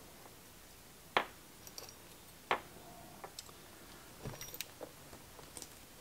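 Light clicks and ticks of small metal switch parts being handled in the fingers during reassembly of the spring mechanism: two sharper clicks, about a second and two and a half seconds in, then fainter scattered ticks.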